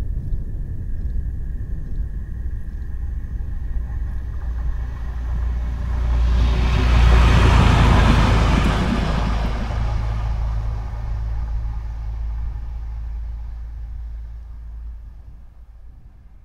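Uerdinger VT 98 diesel railbus passing by on the track. Its low engine rumble builds as it approaches, is loudest about seven to eight seconds in as it goes past close by, then fades away into the distance.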